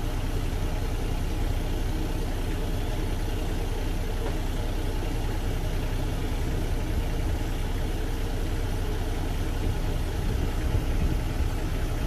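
Kubota U35 mini excavator's diesel engine idling steadily.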